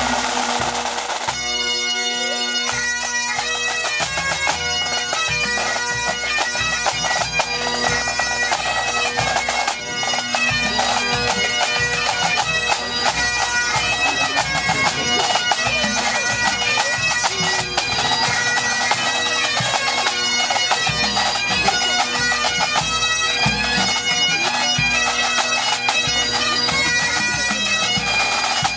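A full pipe band playing: Great Highland bagpipes sounding in unison over their steady drones, with snare and bass drums beating under them. The tune comes in over the drones about a second and a half in.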